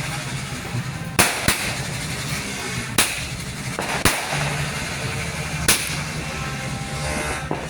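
Firework reports from a 100-shot 0.7-inch 'thunder' cake: five sharp bangs, irregularly spaced a second or so apart, over steady background noise.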